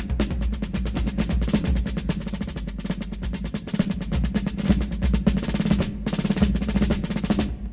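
Drum-heavy dance music: a fast, busy run of drum and wood-block beats over a strong bass, with a brief break about six seconds in.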